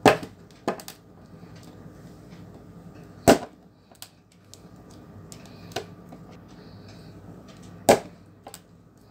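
Sharp, scattered clicks of a screwdriver working the screws out of an Amazon Echo Dot's base, the tip catching and slipping on the screw heads and plastic. Two are loud: one about three seconds in and one near the end.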